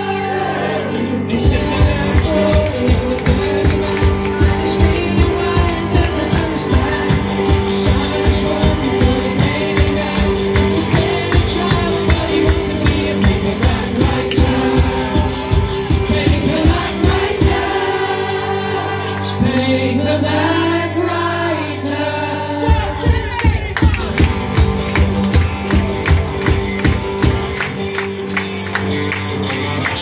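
Live band music with singing over a steady drum beat. The beat drops out for a few seconds past the middle, leaving held notes and voices, then comes back in.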